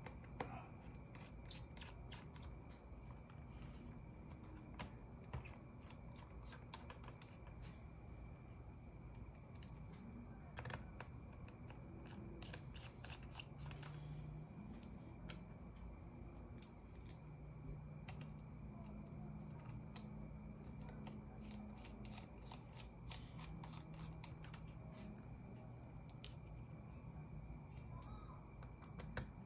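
Faint, scattered light clicks and taps, irregularly spaced, over a steady high-pitched whine and a low hum.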